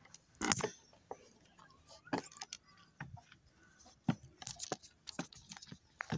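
Footsteps and scuffs on a gritty concrete floor: irregular steps and sharp knocks, about one or two a second, the loudest about half a second in.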